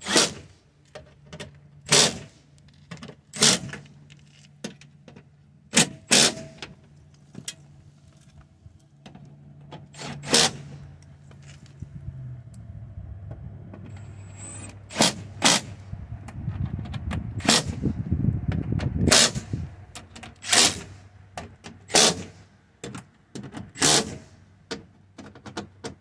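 Sharp clicks and knocks, about a dozen spread irregularly, from parts and tools being handled inside a car door during reassembly. Underneath is a low steady hum, with a low rumbling swell about two-thirds of the way through.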